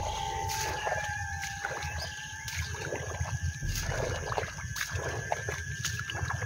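Footsteps squelching and splashing through waterlogged grass and shallow puddles, irregular wet steps. A thin steady high tone carries on beneath them.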